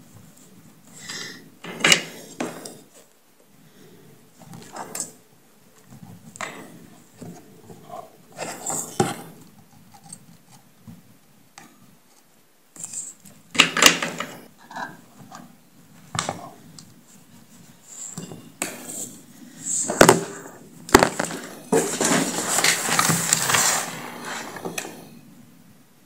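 Handling noise from a speaker driver and its wires being worked by hand inside an opened plastic speaker housing. Scattered clicks and knocks, with a few seconds of continuous scraping near the end.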